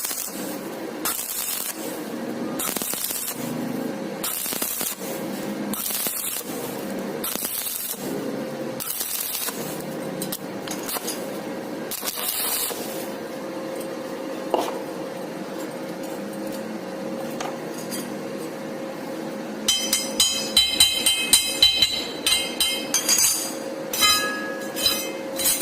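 Stick (arc) welding on thin-wall square tubing: the arc crackles and hisses in short bursts about once a second, then runs more steadily. Near the end come sharp, ringing metal clinks and taps.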